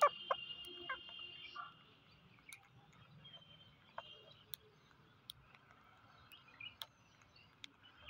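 Rose-ringed parakeets calling: three harsh downward-sliding squawks within the first second, the first the loudest, then faint scattered clicks of beaks picking at rice grains.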